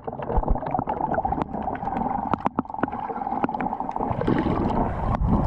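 Water sloshing and gurgling close to the camera, with many sharp clicks and knocks.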